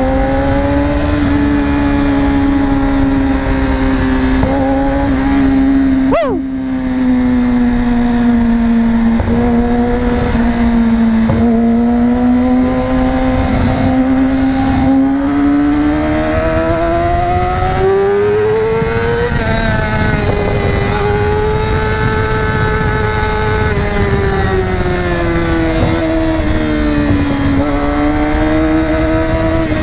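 Yamaha R6's inline-four engine breathing through a Two Brothers aftermarket exhaust, running at steady high revs while riding. The engine note rises and falls gradually. About six seconds in there is a brief, steeply falling chirp with a short dip in level.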